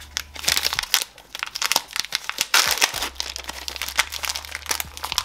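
A Milka Oreo chocolate bar's wrapper being torn open and crinkled by hand, in a dense run of crackling rustles.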